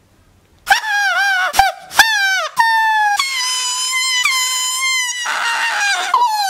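A shrill homemade noisemaker squealing. It starts suddenly about a second in with several short squawks whose pitch bends up and down, then holds a longer, steadier note before breaking into more squeals.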